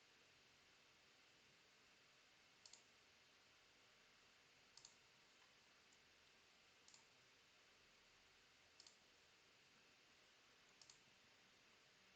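Faint computer mouse clicks over near silence: about five quick double clicks, roughly one every two seconds.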